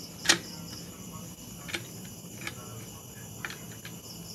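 Light metallic clicks and taps from clutch parts and a hand tool being worked on an opened motorcycle engine: one sharp click just after the start, then a few fainter taps. Crickets chirr steadily in the background.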